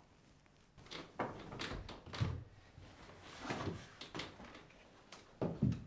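A run of soft, irregular knocks, creaks and rustles, the sounds of a trunk being unpacked and furniture being climbed on, the loudest about two seconds in and near the end.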